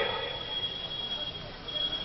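A pause in a man's speech through a microphone: the last word trails off, leaving a steady hiss with a faint, constant high-pitched whine.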